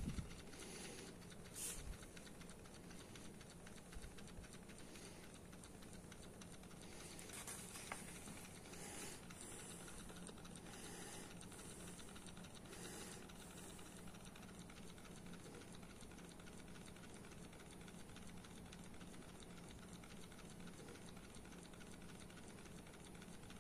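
Mini Ringbom Stirling engine running slowly and fairly steadily at about 210 RPM, a faint light clicking and rattling from its loosely fitted, free-bouncing displacer and small flywheel. A few louder knocks in the first few seconds.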